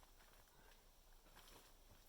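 Near silence: faint outdoor hiss with a few soft ticks.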